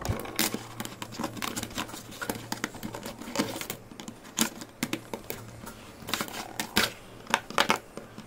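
Quick, irregular clicks and taps of plastic modular circuit boards being handled and set in place, in fast-forward, over a faint steady low hum.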